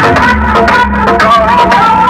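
Very loud Hindi film-song dance remix with heavy bass, blasting from a truck-mounted stack of DJ speaker boxes.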